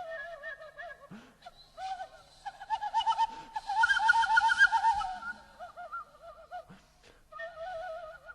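Music: a breathy flute melody with heavy, fast vibrato, with short breaks about a second in and near seven seconds.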